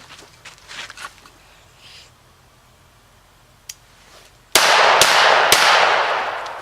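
Three shots from a Para-Ordnance 1911 pistol in .45 ACP, about half a second apart and starting about four and a half seconds in: one shot for each of three targets. A loud wash of echo follows the shots and fades over about a second.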